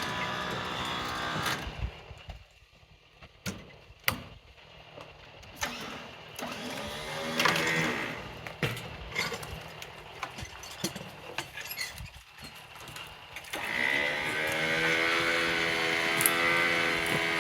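A small petrol engine running, shutting off about two seconds in, then scattered knocks and clicks, and the engine starting again near the end, its pitch rising as it catches and then running steadily.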